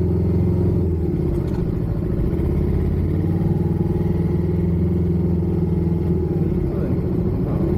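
Suzuki Inazuma's stock-exhaust parallel-twin engine running at low, steady revs, its note shifting briefly about a second in and again near the end.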